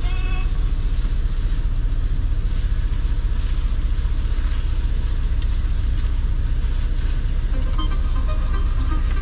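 Steady low rumble of a semi-truck's idling diesel engine, heard inside the cab, with a faint even hiss over it. Music comes back in near the end.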